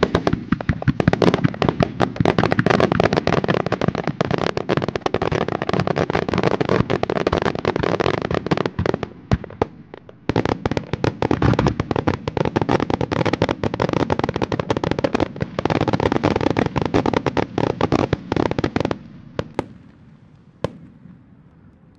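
Fireworks starmine barrage: aerial shells bursting in quick succession as dense rapid bangs and crackling, thinning briefly about nine seconds in, starting up again, and stopping near the end with two or three last single bangs.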